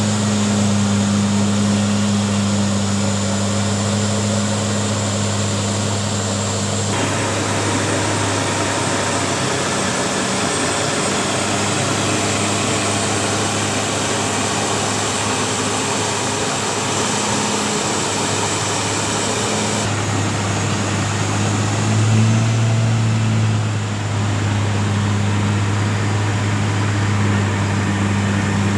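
Milling machinery running steadily with a strong low hum over continuous mechanical noise. The sound shifts about seven seconds in, the hum strengthens again near twenty seconds, and it briefly rises in pitch and loudness a couple of seconds later.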